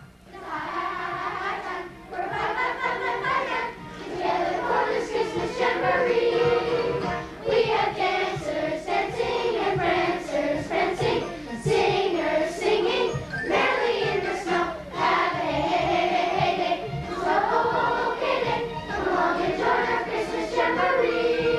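Children's choir singing together, in phrases a few seconds long with short breaks between them.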